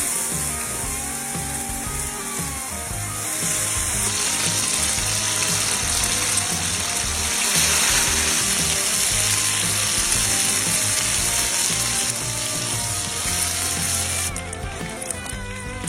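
Fried rice sizzling as it fries, a steady hiss that cuts off suddenly near the end, under background music.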